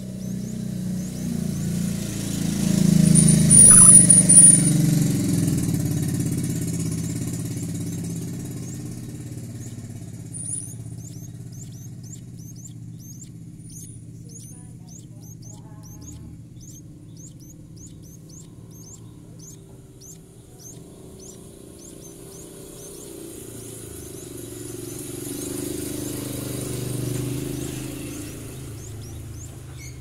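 A motor vehicle passes close by: a low engine rumble swells loudly and fades, and near the end a second, weaker one comes and goes. Between them there is a faint, regular high ticking, about two ticks a second.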